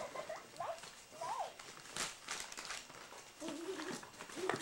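A young child's wordless vocal sounds: a few short squeaky calls that rise and fall, then a longer, lower whiny hum near the end, with light rustling and clicks between.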